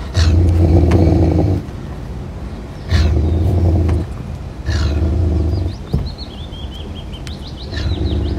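Caracal growling: three low growls each about a second long, each opening with a sharp breathy hiss, and a fourth starting near the end. Small birds chirp faintly in the gap between growls.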